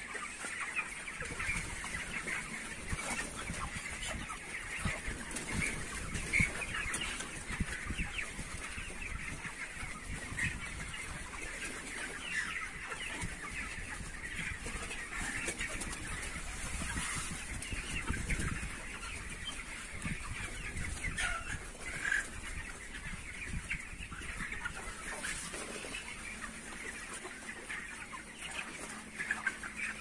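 A large flock of white broiler chickens clucking and peeping all at once, a dense, continuous chatter of many overlapping short calls.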